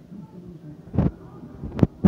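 Postcard album pages with plastic sleeves being handled and turned: a short rustle about a second in, then two sharp clicks near the end.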